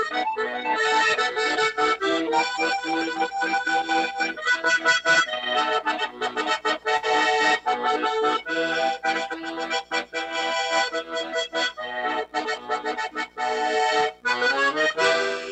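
Accordion playing a chamamé-style folk tune in steady rhythmic chords.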